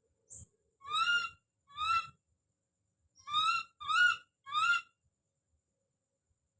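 Baby monkey screaming: five short, high-pitched calls, two spaced apart and then three in quick succession, each with a slight rise in pitch.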